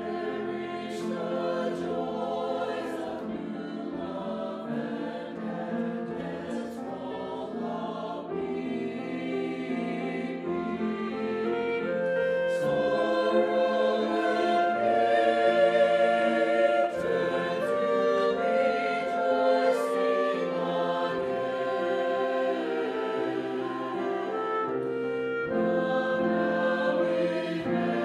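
Church choir singing in parts, the sound growing louder about halfway through.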